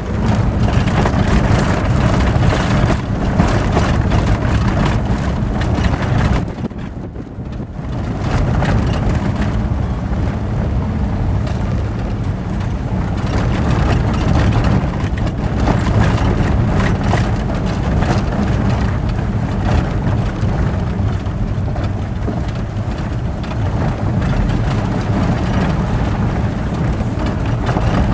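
Vehicle driving on a gravel road: a steady rumble of engine and tyres on loose stones, with wind buffeting the microphone. The noise drops briefly about seven seconds in.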